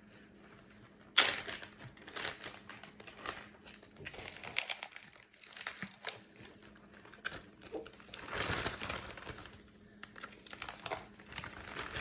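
Plastic packaging crinkling and rustling in irregular bursts as it is handled, starting with a sharp rustle about a second in.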